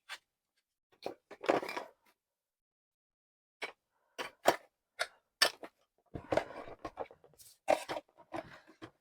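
Handling noise of a car vacuum and its plastic parts being packed back into their box: scattered clicks, knocks and scrapes, with a short lull, then busier clatter in the last few seconds.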